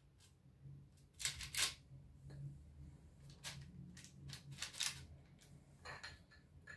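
Soft, short rustles of a silicone pastry brush dabbing beaten egg onto cookie dough on parchment paper in a baking tray, a few separate strokes, the loudest about a second and a half in. A light knock comes near the end.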